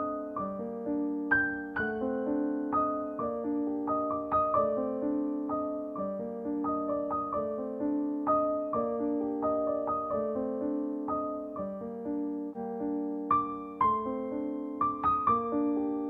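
Background music: a gentle piano melody, notes struck one after another and fading.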